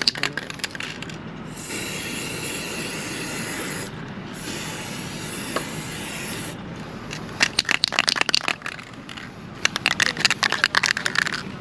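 Matte black aerosol spray paint can spraying in two hissing bursts of about two and a half seconds each, followed by two spells of rapid clicking rattle as the can is shaken and its mixing ball knocks inside.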